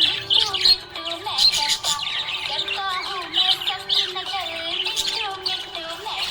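Budgerigar chirping in quick, continuous twittering, over background music.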